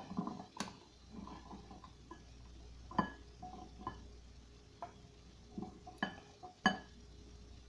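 Bean salad being scraped out of a stainless steel mixing bowl into a glass bowl with a plastic spatula: soft scraping and sliding, with a few scattered light clicks and taps of spatula and bowl.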